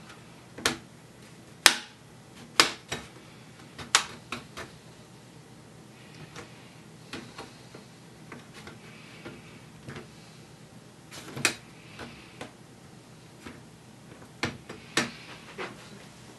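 Irregular sharp plastic clicks and snaps, about fifteen of them and unevenly spaced, as a Dell Latitude 3540's plastic palm rest is handled and its retaining tabs are worked with a plastic pry tool.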